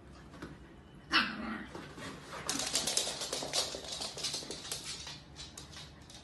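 A corgi gives one short bark about a second in, followed by a quick run of sharp clicks and scrabbling as the dogs' claws skitter on a hardwood floor while they play.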